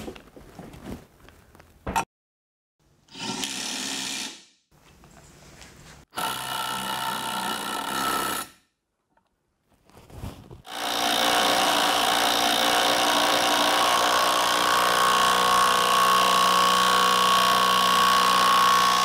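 Bosch GDS 18 V-LI cordless impact wrench running in three runs: a short one about three seconds in, a longer one about six seconds in, and a long steady run from about eleven seconds to the end.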